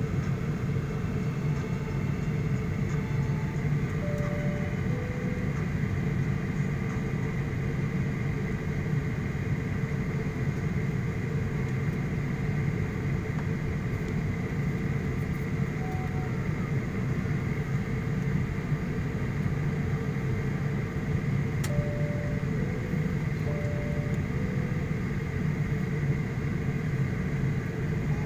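Steady low cabin noise of an airliner waiting to depart, with a faint high-then-lower two-note chime a few seconds in and twice more near the end, and one sharp click.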